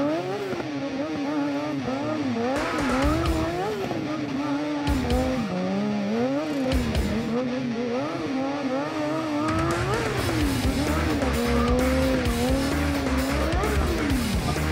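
Sport motorcycle engine revved up and down over and over during a stunt routine, its pitch rising and falling in quick swoops, with tyre squeal at times. The low rumble grows heavier about two-thirds of the way through.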